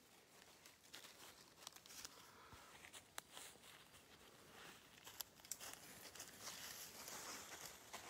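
Faint rustling and crackling of footsteps through dead leaves and forest litter, with scattered sharp clicks like snapping twigs.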